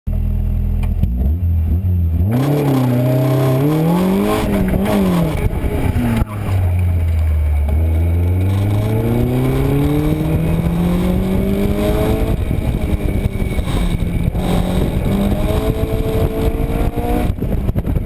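Locost Lotus Seven replica's engine heard from the open cockpit, accelerating hard on track. The engine note climbs steeply from about two seconds in and falls back near five seconds, then rises in two long, slow pulls, each ending in a sudden drop.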